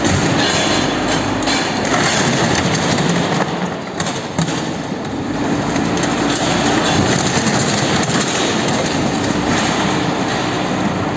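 Heavy machinery running with a loud, continuous rumble and clatter and a steady low hum, with a couple of brief knocks about four seconds in.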